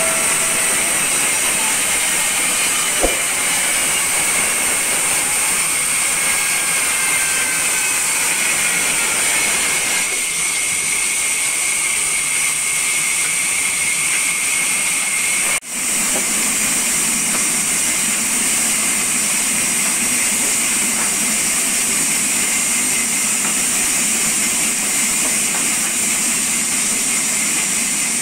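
Large vertical band saw running and cutting wood, a steady high hiss and whine with no let-up; the sound drops out for an instant about halfway through.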